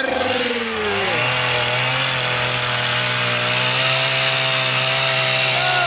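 A chainsaw running steadily at constant speed while sawing, its engine note holding one pitch.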